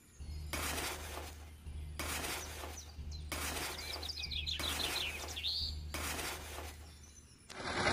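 A small metal scoop scraping and digging into sand and gravel in a plastic toy trailer, and the gravel tipping onto concrete. It comes as about four gritty scoops, each lasting about a second. A bird chirps a few times around the middle.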